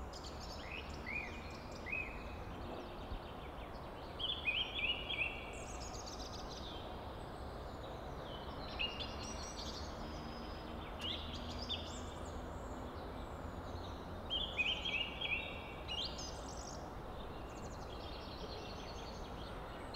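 Wild birds calling over a steady outdoor background noise: runs of quick, repeated high notes every few seconds, loudest about four to five seconds in and again about fifteen seconds in.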